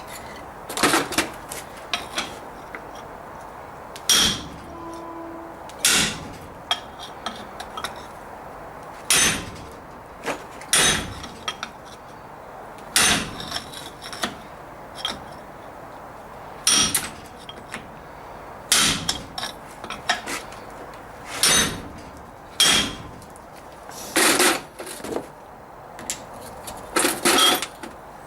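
Hammer blows on steel ringing out, roughly one every one to two seconds with a few longer pauses. They strike the back of a Triumph Herald rear hub at its taper, to shock it free while a homemade hydraulic puller holds it under pressure.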